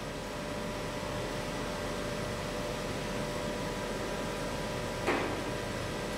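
Steady mechanical hum and hiss with faint steady tones, from the small electric motor turning the installation's acrylic cylinder. A brief knock sounds about five seconds in.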